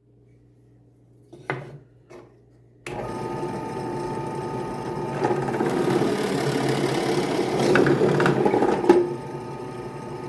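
Electric drill boring a hole through a small square of scrap wood: after a couple of short knocks, the motor starts about three seconds in and runs with a steady whine, getting louder toward the end and easing off shortly before it stops.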